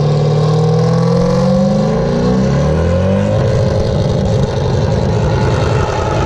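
Car engine revving hard, its pitch climbing over the first three seconds and then falling back.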